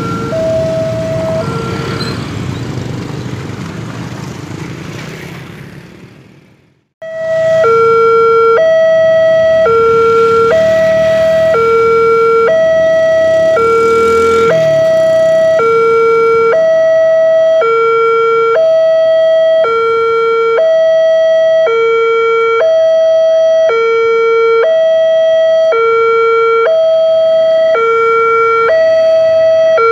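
Electronic two-tone level-crossing warning alarm, high and low tones alternating steadily, each held a little over half a second, as the crossing's barriers come down for an approaching train. Before it, after a brief break about seven seconds in, the engines of motorcycles crossing the tracks fade out.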